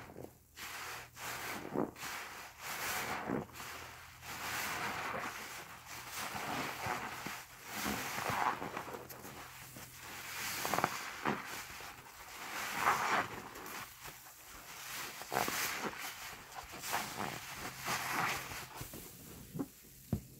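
A soapy HDX sponge squeezed and kneaded by gloved hands in thick suds: repeated wet squelches and foam crackle that swell and fade every second or two.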